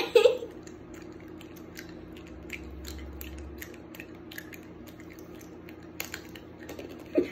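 Quiet chewing and small wet mouth clicks of sour candy being eaten, over a faint steady hum. A short loud burst of voice comes right at the start, and laughter breaks out at the very end.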